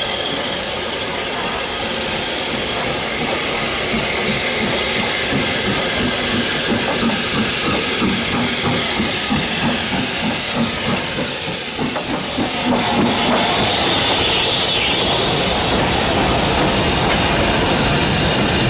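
Southern Railway S15 class steam locomotive No. 847 running past at close range with steam hissing. Its coaches follow, wheels clicking over the rail joints, and the sound grows louder over the first few seconds.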